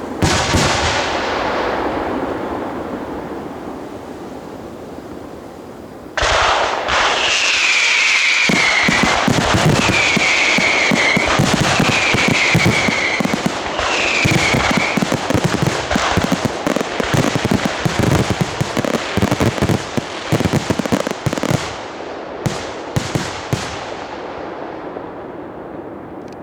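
Fireworks finale: a bang with crackling that fades away, then about six seconds in a sudden dense barrage of crackling and bangs. Four high whistles falling in pitch sound through it. Near the end it thins to a few scattered bangs.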